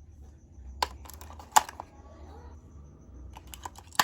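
Sharp clicks and taps from handling a plastic toy car and its packaging: a quick cluster about a second in with the loudest click just after, then another cluster near the end.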